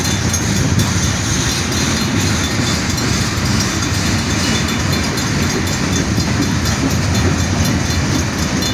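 Freight train cars rolling slowly past at about 15 mph, a steady rumble of steel wheels on the rails.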